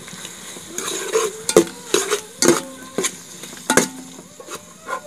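Metal ladle stirring onions and tomatoes frying in ghee in an aluminium pot: irregular sharp clanks of the ladle against the pot, roughly two a second, some of them ringing briefly, over a faint sizzle.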